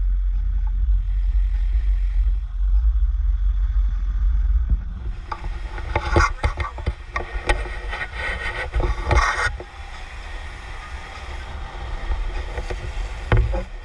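Downhill longboard riding: wind buffeting the microphone over a steady rumble of wheels on pavement. From about five seconds in come several seconds of sharp scraping and clattering knocks, then the rumble goes on more quietly.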